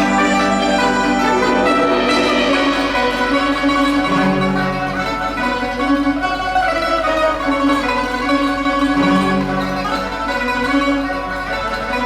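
Chinese chamber ensemble playing: plucked pipa, zhongruan and struck yangqin with bowed erhu and cello, with sustained low cello notes.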